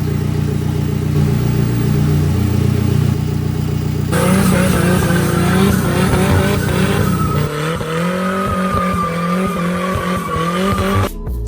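Turbocharged Toyota 2RZ four-cylinder engine in a Tacoma pickup, running loud and revving, its pitch shifting up and down. About four seconds in a high whine joins it and falls slowly until the sound cuts off abruptly near the end.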